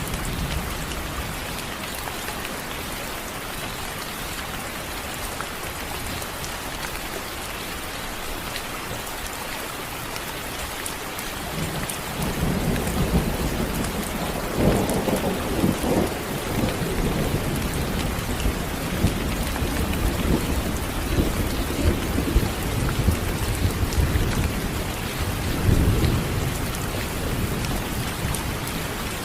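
Steady rain hissing, with thunder rumbling in about twelve seconds in and rolling on to the end, swelling louder a few times.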